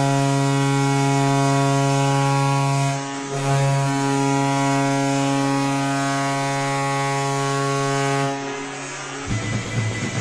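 Hockey goal horn sounding one long, steady, low blast with a brief dip about three seconds in, cutting off about nine seconds in: the signal of a goal.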